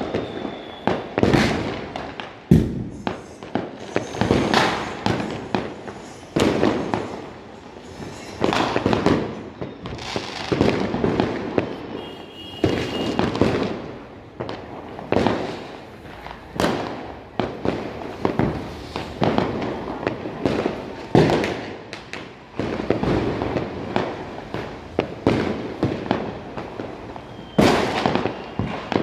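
Fireworks and firecrackers going off across a town: a near-continuous string of bangs, about one every second or two, each dying away in an echo. A short, thin high whistle cuts through a few times.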